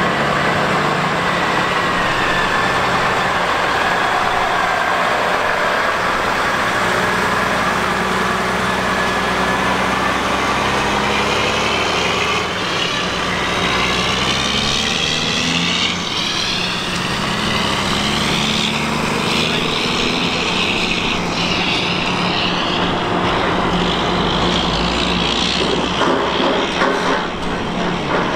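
Heavy diesel engines running steadily, from the excavator and transport trucks, with a shifting higher tone partway through.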